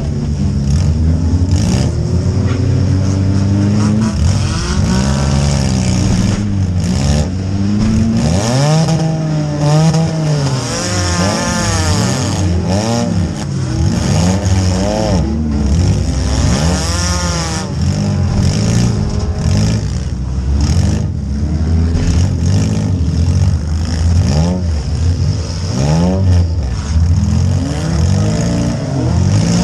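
Compact demolition derby car's engine revving up and down hard over and over, heard from inside its stripped cabin, with sharp metal crashes and clatter from hits at intervals.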